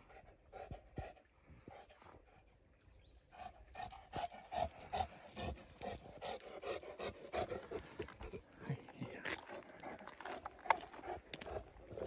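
Saint Bernard panting in quick rhythmic breaths. From about three and a half seconds in, crunching footsteps on a gravel road join in and grow louder.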